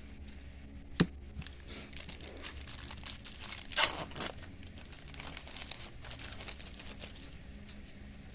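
A baseball card pack's plastic wrapper being torn open and crinkled, loudest around four seconds in, with a single sharp click about a second in.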